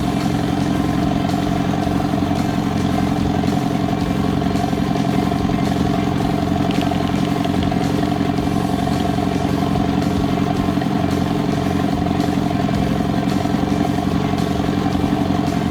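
Boat motor running steadily at trolling speed, an even, unchanging drone.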